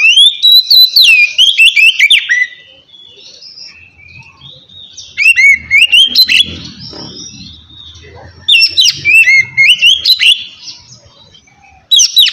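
Oriental magpie-robin (kacer) singing loud, clear whistled phrases of gliding notes, in bursts of about two seconds with short pauses between; four bursts, the last beginning near the end.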